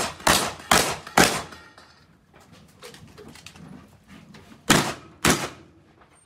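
Benelli M2 SP semi-automatic shotgun firing: four quick shots about a third to half a second apart, a pause, then two more shots near the end, each trailing off in a short echo.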